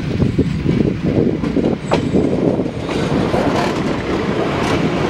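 ČD class 810 diesel railcar and its trailer car passing close by at speed, a steady, dense rumble of engine and running gear, with a few sharp wheel clicks over rail joints in the second half.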